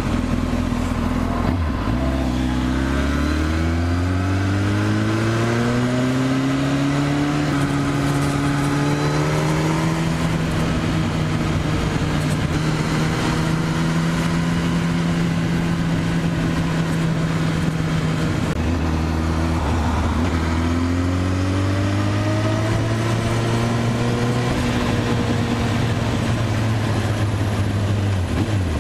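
Kawasaki sportbike engine under way: it accelerates up through the gears in a series of rising pulls from about two seconds in, holds a steady cruising pitch, drops in revs about two-thirds of the way through, then climbs again, over steady wind and road noise.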